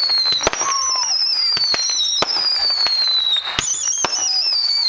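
Fireworks going off, with many sharp bangs and pops over a loud high whistle that slides slowly down in pitch and jumps back up twice: whistling effects from consumer fireworks.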